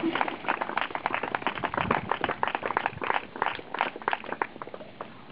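A small group clapping in irregular, overlapping claps that thin out and die away about four and a half seconds in.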